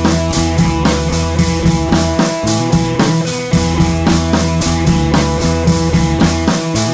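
Background music with a steady drum beat over sustained bass and guitar.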